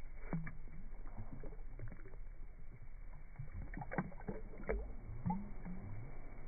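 Small splashes and water sloshing as a bass is let go by hand at the water's surface, with scattered clicks and knocks, the sharpest about four seconds in.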